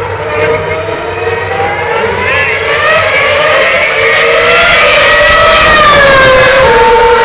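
2.4-litre V8 Formula 1 engines running: one holds a steady high note, while a second climbs in pitch over several seconds and drops away near the end, growing louder as it comes closer.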